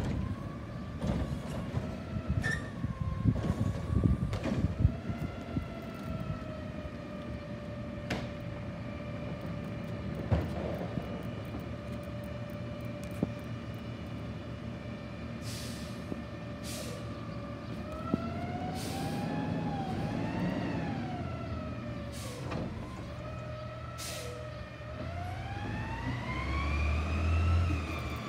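Front-load garbage truck with a Curotto-Can automated arm working curbside carts: a pitched mechanical whine from the revved engine and hydraulics holds steady, then rises and falls several times as the arm cycles. Loud clanks and knocks come in the first few seconds, and a couple of short air hisses come about midway.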